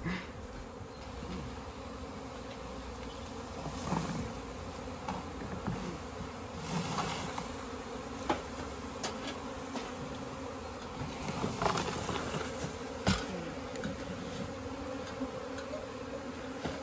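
A honeybee swarm buzzing steadily close by, stirred up as the cluster is knocked loose into a plastic bin. A few short clicks and knocks cut through the hum, the sharpest about thirteen seconds in.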